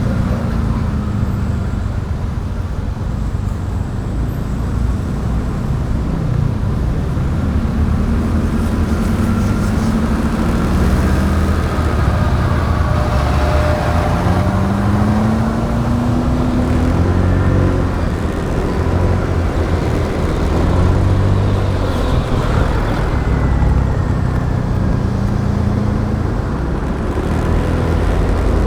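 Motorbike riding on a road, its engine note rising and falling several times as it speeds up and eases off, under a steady heavy rumble of wind and road noise.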